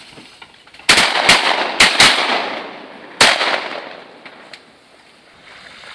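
Five shotgun shots from several hunters firing at incoming mallards, coming in quick succession over about two and a half seconds, each trailing off in a short echo.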